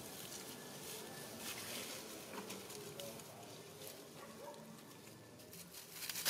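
Dry leaf litter rustling and crackling as macaques shift about on it, in many small scattered crackles, with a louder burst of rustling near the end as an adult macaque moves quickly past.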